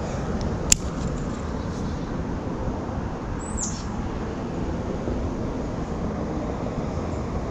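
Steady low outdoor background rumble, with a single sharp click a little under a second in and one short, high, falling bird chirp about halfway through.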